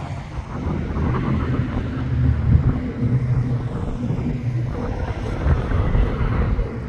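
A vehicle's engine running: a low, steady drone.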